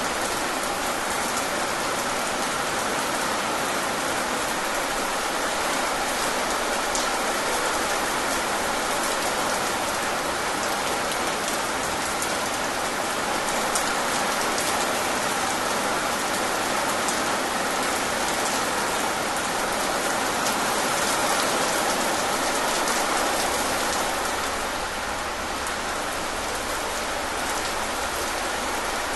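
Heavy rain falling steadily, a dense, even hiss of countless drops.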